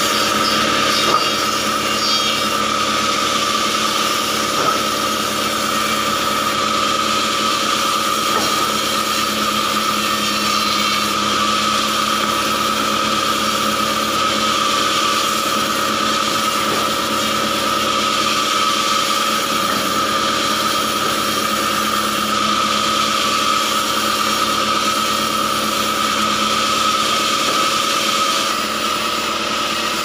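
Band sawmill running steadily while acacia logs are fed through the blade, with a constant high whine over the motor's hum.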